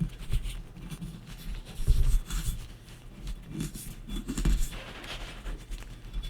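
Faint rubbing and scraping of a cotton swab being worked around inside a 1911 pistol's slide, with handling noise and a few soft knocks, the strongest about two seconds in.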